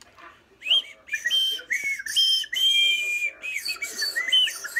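Two small handheld whistles blown together, held high notes broken by quick glides up and down, sometimes two pitches at once, starting just under a second in.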